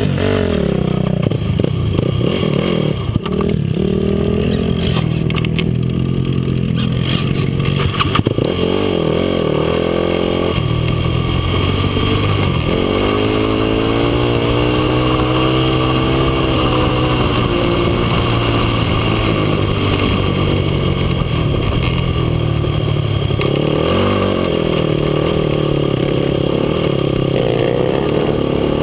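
Yamaha YFZ450 quad's single-cylinder four-stroke engine running under load, its pitch dropping and climbing again several times as the throttle comes off and back on.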